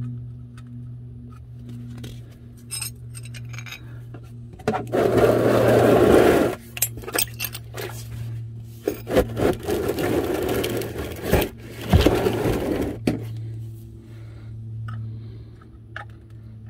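Rustling and scraping with sharp metal clinks as the transmission drain plug of a 2018 Ford Explorer is refitted and wiped, in two loud stretches, the second about four seconds long and clicking repeatedly. A steady low hum runs underneath.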